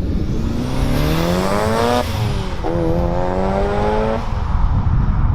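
Turbocharged Mitsubishi Lancer Evolution IX accelerating hard: the engine's pitch climbs through one gear, drops at a gear change about two seconds in, climbs again through the next gear, then the driver lifts off a little after four seconds in. A steady low rumble of noise runs underneath.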